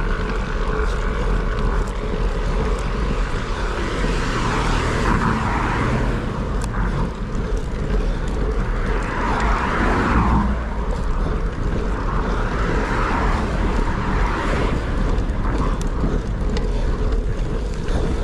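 Wind rushing over the microphone with road noise during a bicycle ride: a steady low rumble, with hissing noise swelling and fading three times.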